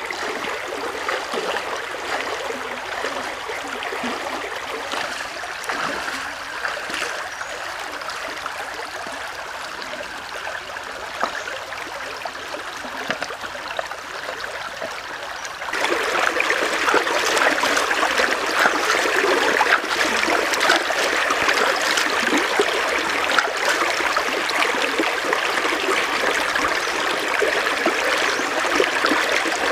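Shallow stream running over rocks, a steady rushing trickle that turns louder and brighter about halfway through.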